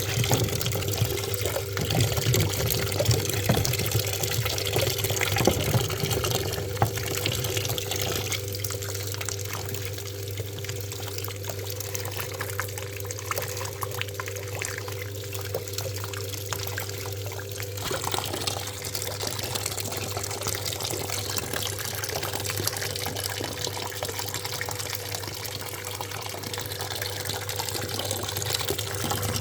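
Water running into a top-loading washing machine, a steady rush with a steady low hum beneath it; the rush eases for about ten seconds in the middle.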